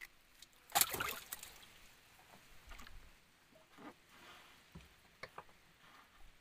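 Water splashing and sloshing, loudest in a brief rush about a second in, with scattered light knocks after it.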